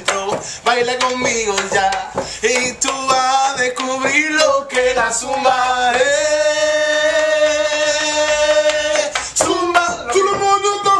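Men singing loudly together close to the microphone, with sharp hits mixed in; about six seconds in, a voice holds one long note for around three seconds before the singing breaks up again.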